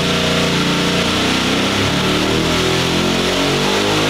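Boosted Chevy V8 race engine running loud at wide-open throttle on an engine dyno, its engine speed climbing through the second half of the pull.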